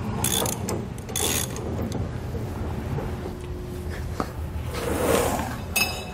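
Spare-tire winch of a Ram 2500 being cranked down with the long lift rod, rattling and clicking for the first second or so. Around five seconds the heavy spare tire scrapes as it is dragged out over the concrete floor, followed by a short metallic clink.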